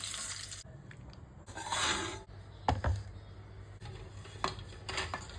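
Kitchen utensils and dishes knocking and scraping: a couple of short noisy swishes, then several sharp clinks.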